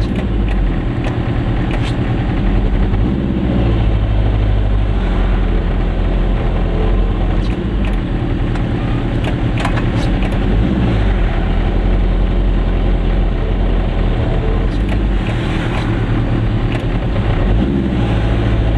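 Goggomobil's small two-stroke twin engine running under way, heard from inside the car, its pitch shifting a few times with the throttle and gears. Occasional sharp clicks and rattles are heard, the clearest about ten seconds in.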